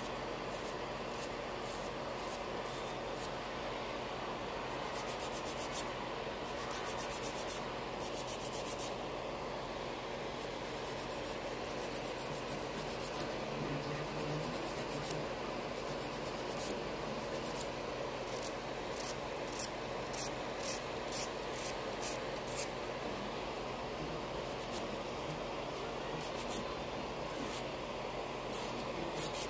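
Nail file rasping back and forth across a fingernail in runs of quick strokes, over the steady whir of a nail dust collector's fan.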